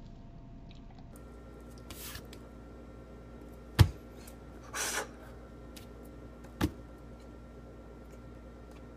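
Steady room hum with a thin high whine, broken by a sharp knock about four seconds in, a short rustle a second later, and a smaller knock near seven seconds.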